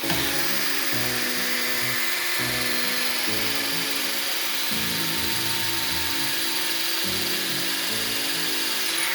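Makita 12V cordless drill/driver drilling through a 3 mm thick metal U-channel bar, a steady grinding whir that starts suddenly and holds at an even level, over background music.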